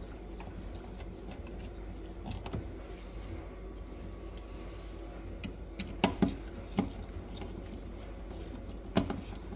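A few sharp clicks and taps of a screwdriver and small metal screws against a plastic outlet cover plate as the plate is fastened over a GFCI outlet, the clearest about two seconds in, around six seconds in and near the end.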